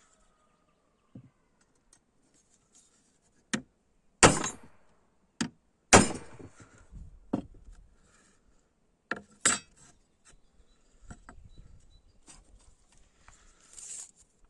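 Irregular sharp knocks and clinks of tools and a steel workpiece being handled, about seven in all, each with a short ringing tail; the loudest come about four and six seconds in, with light rustling and small clicks between.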